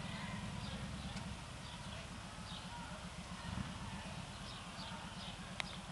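Outdoor ambience: a steady low rumble with a series of short, high, falling chirps, and one sharp click about five and a half seconds in.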